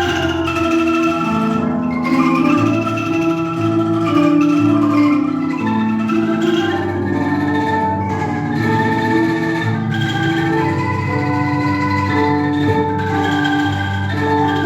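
Angklung ensemble playing a melody with chords and a bass line, each note of the shaken bamboo tubes held as a rapid rattling tremolo.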